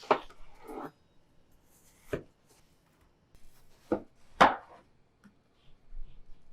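Kitchen knife cutting watermelon, about five separate cuts at uneven intervals, each a sharp knock. The loudest comes about four and a half seconds in.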